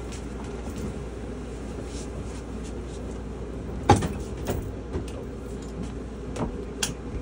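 A sharp knock about four seconds in, followed by a few lighter clicks, over a steady low hum.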